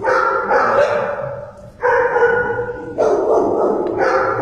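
Shelter dogs barking in their kennels, several at once, in loud overlapping bouts that break off and start again about every second.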